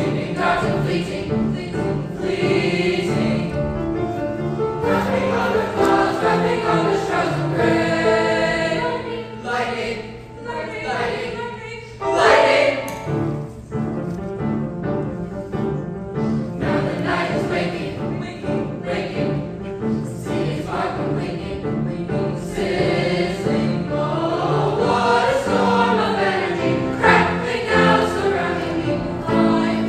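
Mixed choir of young voices singing in sustained chords, with a short lull about eleven seconds in and a loud full-voiced entry just after.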